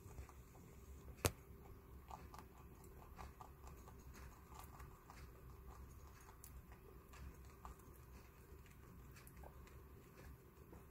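Guinea pigs chewing dry pellets and dried vegetable pieces: faint, irregular crunching clicks. One sharp click a little over a second in.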